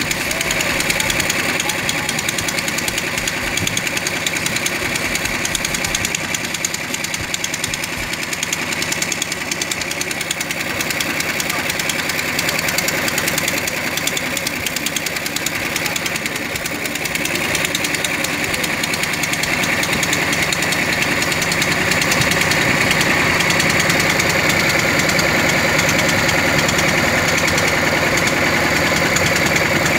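An engine running steadily with a fast, even pulsing, growing a little louder about two-thirds of the way through.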